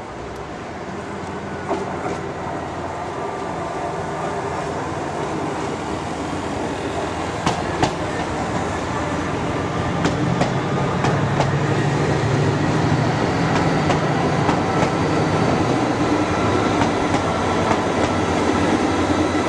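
Class 68 diesel locomotive hauling a TransPennine Express Nova 3 train, its engine running with a steady low hum that grows gradually louder, with a few sharp clicks of wheels over rail joints.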